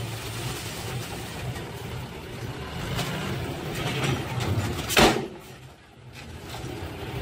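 Dump truck diesel engines running steadily while the raised tipper beds unload soil and the trucks ease forward. A single loud thump about five seconds in.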